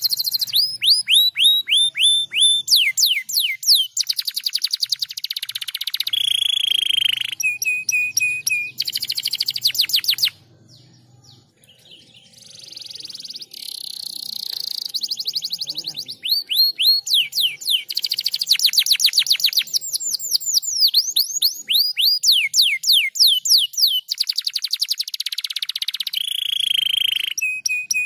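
Domestic canary singing a long song of rapid trills and repeated downward-sweeping notes, with a short pause about ten seconds in before it resumes.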